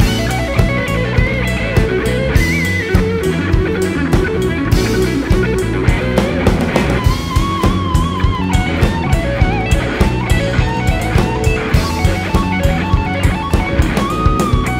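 Live band playing an instrumental break: a lead electric guitar solo of bent notes with vibrato over a steady drum beat and bass.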